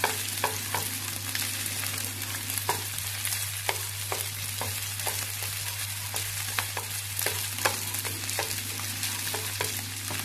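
Cooked rice sizzling as it stir-fries in hot oil in a frying pan, with irregular sharp clicks and taps of wooden chopsticks against the pan as the rice is broken up and turned while it fries toward golden. A steady low hum runs underneath.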